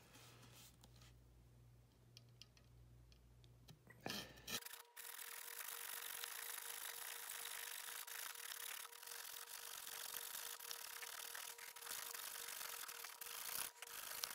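Fine-bladed bow saw (a fret or coping-type saw) cutting through a wooden axe handle at the axe head's eye, with a rasping back-and-forth stroke sound. It is faint at first and gets louder about four and a half seconds in, when a steady hum also starts underneath.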